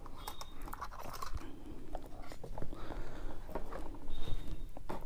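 Hard plastic clicking, scraping and rattling as the propeller holder is unclipped and worked off a folded DJI Mini 2 drone by hand, with a sharper click near the end.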